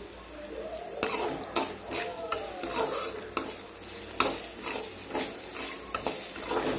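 Garlic, green chillies, mustard seeds and urad dal sizzling in hot oil in a metal kadai as they are fried for a tempering. A perforated metal ladle scrapes and taps against the pan while they are stirred. The sizzling comes up about a second in, once the stirring starts.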